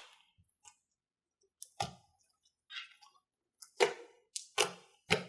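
Sharp wet clicks and pops of slime being pressed and pulled by hand, about half a dozen at uneven gaps, coming faster toward the end.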